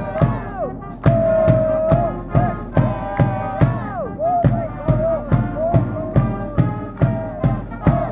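University cheering-squad brass band playing a cheering tune: held brass notes with several falling slides, over a steady drum beat of about two beats a second.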